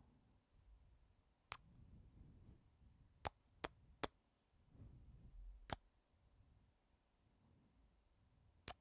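Close-miked kisses: about six short, sharp lip smacks spaced out over several seconds, with faint soft breaths between them.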